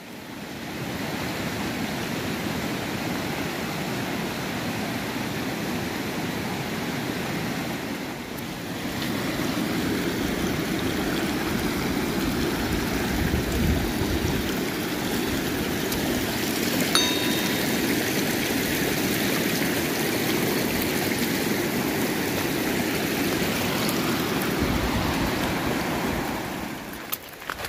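Mountain stream rushing steadily over rocks. The rush grows louder about a third of the way in and drops away near the end.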